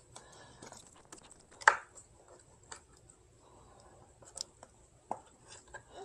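Hands handling the scooter's motor cable and frame parts: scattered small clicks and rustles, with a sharper tap about a second and a half in and a few lighter taps later.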